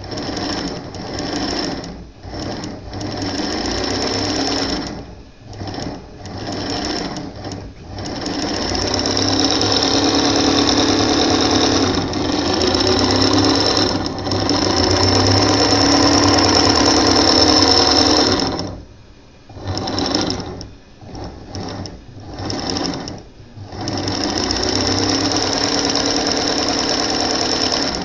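Antique Western Electric sewing machine running under its electric motor, with a steady high whine. It starts and stops in short bursts, runs steadily for about ten seconds, stops, and after a few more short bursts runs steadily again near the end.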